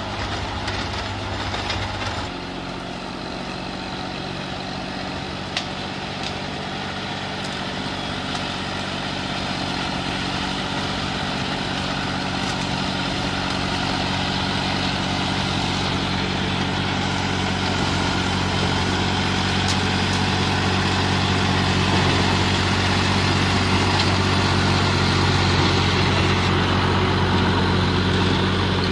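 Tractor diesel engine running under load as it drives a rear-mounted rotary tiller through the soil and plant stalks. The engine note shifts about two seconds in and grows steadily louder as the tractor comes closer.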